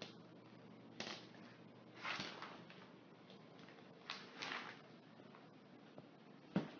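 Quiet room with a few short rustles and soft knocks, the loudest a sharp thump near the end: footsteps and handling noise from someone moving about with a handheld phone.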